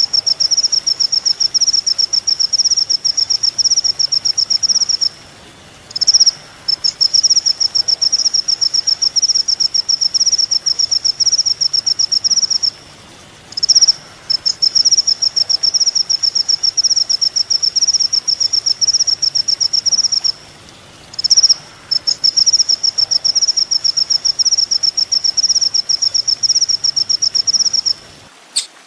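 Kolibri ninja, a sunbird, singing long, very fast, high trills, each lasting five to seven seconds with short breaks between them; each new trill opens with a brief louder note.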